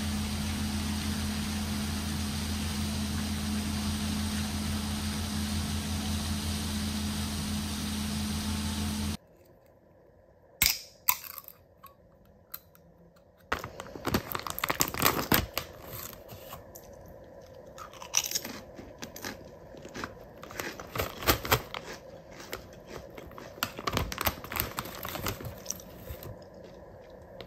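A steady low hum with a hiss for about the first nine seconds, then, after a short quiet with a couple of clicks, a potato chip bag being crinkled, torn open and rustled by hand, with many sharp crackles.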